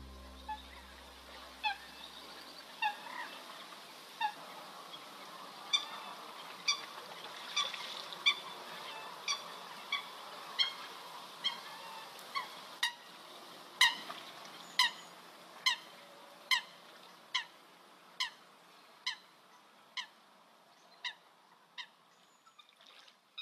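A waterbird calling over and over: short, pitched calls about once a second, louder in the middle and fading toward the end, over a faint steady hiss.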